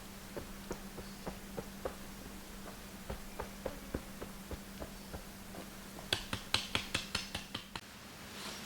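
A run of light knocks, about three a second, then near the end a quicker, sharper burst of clicks, about six a second.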